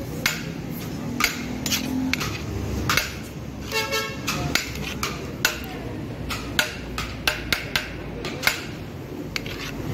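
Metal spoon knocking and scraping against a large metal biryani pot as rice is scooped into a plastic box, in irregular sharp clinks. A vehicle horn toots briefly about four seconds in, over steady street background noise.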